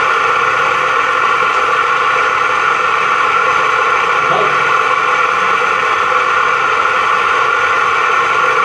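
Water from a mixer tap pouring steadily into a washbasin while hands rub in the stream, rinsing the bowl clean.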